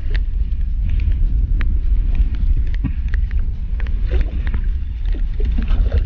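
Underwater sound on a night spearfishing dive: a steady low rumble of water moving around the microphone, with scattered sharp clicks and crackles.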